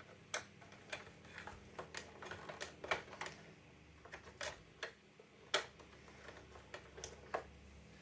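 Irregular small clicks and ticks of a hand screwdriver working a screw inside a plastic telephone housing, at an awkward angle, a dozen or so over several seconds.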